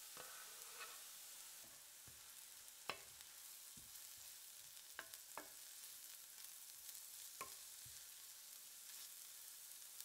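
Sliced leeks sizzling softly and steadily in oil in an enamel skillet, stirred with a wooden spoon that knocks lightly against the pan about five times.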